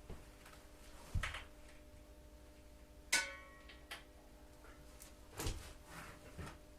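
Hand tools and metal parts being handled on a motorcycle during dismantling: a few dull knocks and light taps, with one sharp metallic clink and a short ring about three seconds in, over a faint steady hum.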